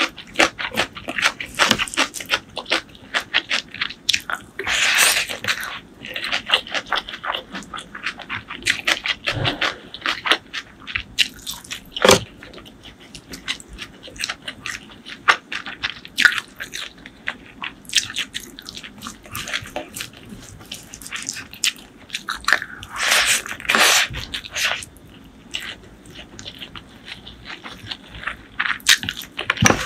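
Close-miked eating sounds: a person chewing, smacking and crunching mouthfuls of curry, rice and greens eaten by hand, in dense irregular clicks. Two longer noisy stretches stand out, one about five seconds in and one a little over twenty seconds in.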